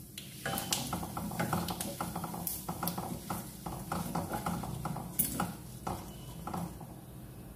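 Metal spoon stirring spices into hot mustard oil in a stainless steel kadhai, clinking and scraping against the pan a few times a second, over a faint sizzle of the tempering spices.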